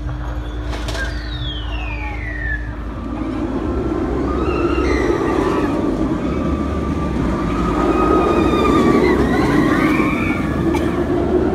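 Inverted steel roller coaster train rushing along the track overhead: from about three seconds in, a roar of its wheels on the steel rails builds and peaks near the end, with riders screaming over it. Early on, a single falling shriek.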